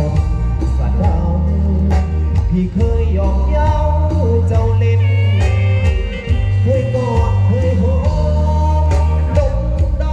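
Live band music with a singing voice, played loud through a sound truck's stacked speaker cabinets (SR18 bass cabinets and Thai Audio TD-112 mid cabinets), with a heavy, steady bass.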